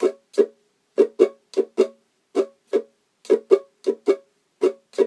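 Ukulele strummed in the Swiss Army knife pattern (down, down, up, up, down, up) on strings muted with the fretting hand, giving short choked strokes. The first two strokes of each group are spaced wider and the last ones come quicker, at a slow practice tempo.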